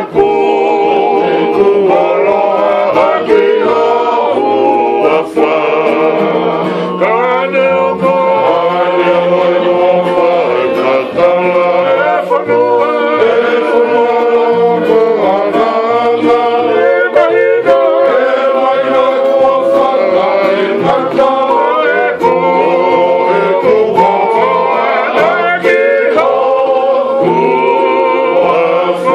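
A group of men singing together to several strummed acoustic guitars, loud and unbroken.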